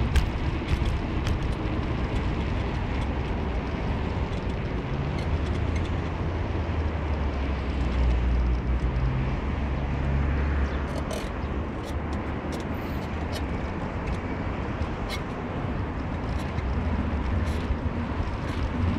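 Car driving: a steady low engine and road rumble with a noise haze over it, swelling a little about halfway through, and a few faint clicks.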